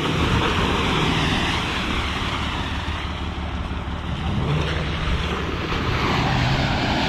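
Diesel truck engine, a 5.9 12-valve Cummins, running under load off-road, its pitch rising twice about midway as it revs. A loud, steady rushing noise runs under it.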